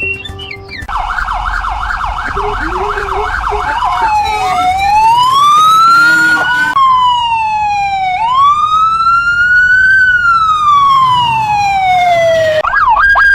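Emergency vehicle siren, loud: about a second in, a fast warbling yelp of roughly three cycles a second, which after about three seconds changes to a slow wail rising and falling in long sweeps.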